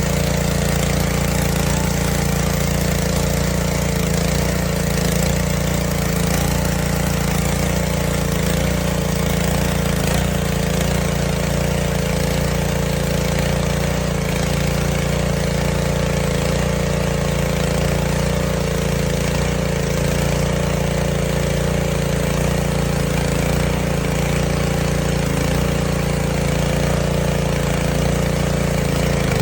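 Small pull-start gas engine of a pressure washer running steadily under load, with the hiss of water spraying through a spinning surface cleaner on concrete.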